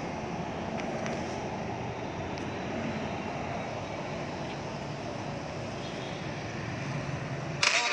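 Steady rumbling background noise with a few faint taps, then music starts loudly just before the end.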